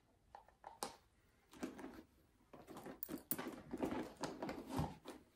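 Handling noises from a coated-cotton handbag and its hardware: light clicks of a metal strap clip, then rustling and clicking as the bag and its contents are moved about.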